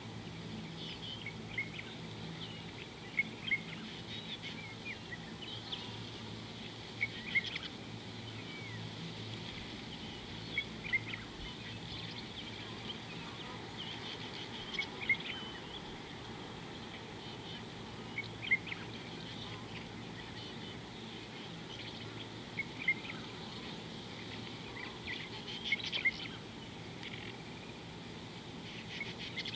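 Birds calling intermittently with short chirps and whistles, a few every few seconds, over a steady low hum and faint hiss of outdoor background noise.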